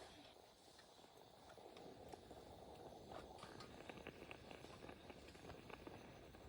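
Near silence: faint background hiss with a few light ticks and taps, a little more frequent in the second half.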